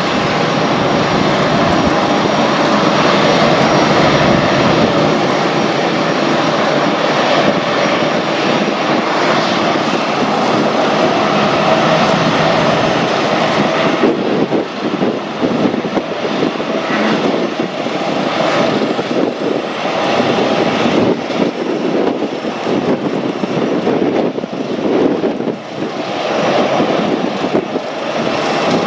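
A Boeing 747-400's four turbofan engines running loud, a dense jet noise with a faint steady whine in it. From about halfway through it turns uneven, swelling and dipping.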